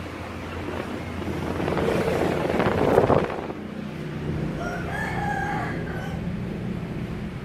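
A rushing noise swells to its loudest about three seconds in and stops abruptly. About five seconds in comes a drawn-out animal call, wavering in pitch and lasting about a second and a half, of the kind a rooster's crow makes.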